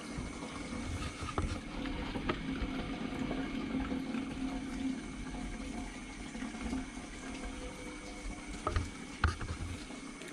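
Aquarium water trickling and splashing over a steady low hum, with a few faint clicks.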